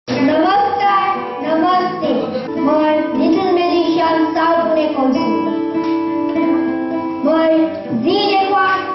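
A song playing: a high singing voice carrying a melody over plucked guitar accompaniment.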